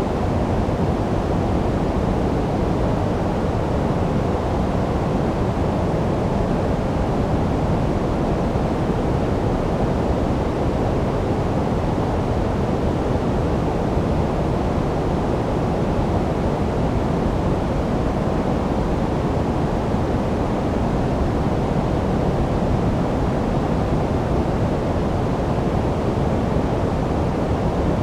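Steady generated noise played as a sleep sound: an even, unchanging hiss weighted toward the low end, deeper and darker than flat white noise.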